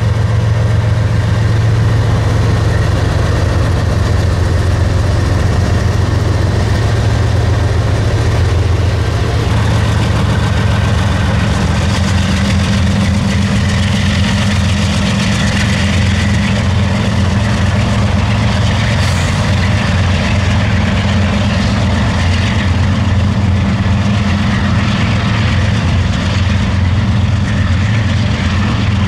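Norfolk Southern eastbound intermodal freight train passing, with a loud, steady low diesel drone throughout. A brighter rolling rush joins it from about twelve seconds in.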